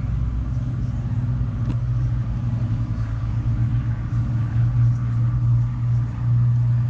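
Piston-engined propeller aircraft droning overhead: a steady, deep engine hum that grows somewhat louder toward the end.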